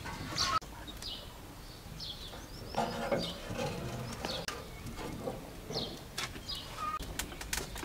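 Birds chirping: short high chirps scattered through, with a few lower calls in between.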